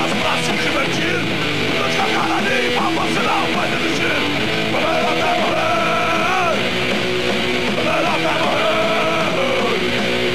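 Hardcore punk band playing live: distorted electric guitar, bass and pounding drums in a dense, loud wall of sound, with a singer shouting over it.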